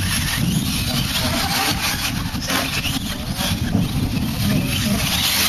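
Radio-controlled 1/10-scale short course trucks racing on a dirt track: motors running and tyres on dirt, over a heavy low rumble.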